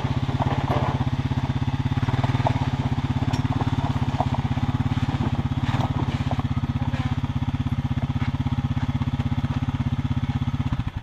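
A small petrol engine running steadily at one speed close by, with a rapid even pulse, cutting off abruptly near the end.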